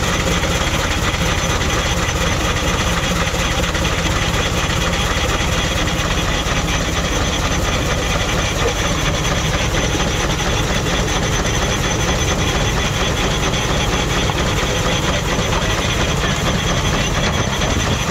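Antique steam traction engine running steadily, driving a generator through a long flat belt from its flywheel: an even, continuous mechanical running sound with a fast fine beat.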